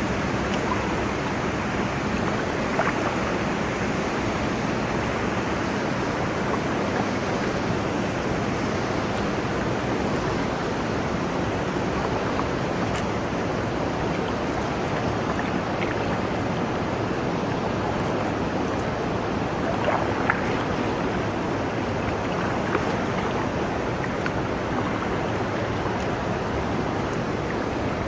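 Steady rushing noise of river water and wind, with the distant roar of a waterfall, heard from a kayak on the water. A few faint short knocks stand out.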